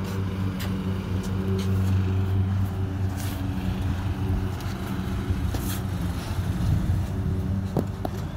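A steady low machine hum, with light taps and scuffs scattered over it and two sharper taps near the end.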